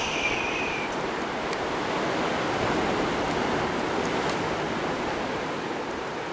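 Sea surf washing against a rocky shore: a steady rush of waves that swells slightly in the middle. A high falling whistle-like tone fades out in the first second.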